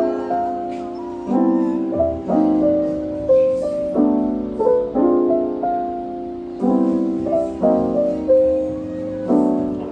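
Background piano music: soft chords struck about once a second under a simple melody.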